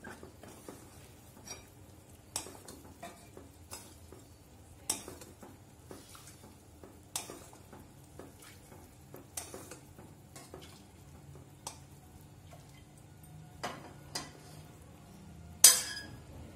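Steel ladle clinking and knocking against a steel pot and bowl as sugar syrup is scooped from one into the other, with scattered light taps and one loud clank near the end.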